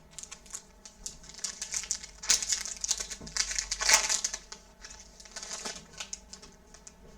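Crinkling of a foil trading-card pack wrapper being handled, with louder crackles about two and four seconds in.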